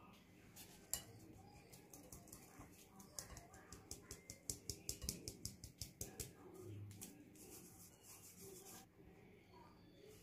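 Flour being sifted through a fine metal mesh sieve into a glass bowl: a faint, quick run of taps and rasps, about four a second, in the middle, then a short steady rasping. Near the end, hands rub the flour into the crumbly dough.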